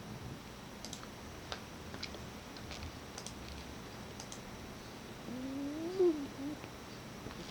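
Sleeping pet snoring: faint, irregular clicking breaths, then about five seconds in one low, pitched snore that rises and falls for about a second.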